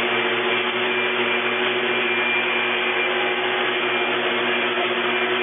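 A steady mechanical drone with a constant hum and hiss, unchanging in level and pitch throughout.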